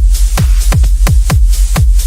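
Electronic dance music built on heavy bass-boom kicks: low thumps, each dropping in pitch, about three a second, over a continuous deep bass, with sharp high ticks between the kicks.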